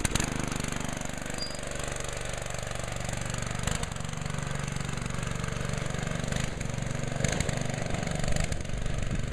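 Murray go-kart's small gas engine, just started, running steadily as the kart drives away.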